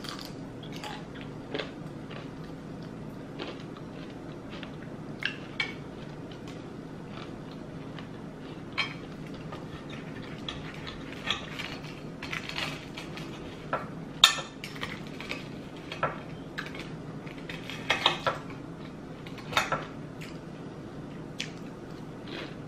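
Close-miked eating: cutlery clinking and scraping on a plate amid crisp, crunchy bites and chewing of waffles and bacon, in scattered sharp clicks over a steady low hum.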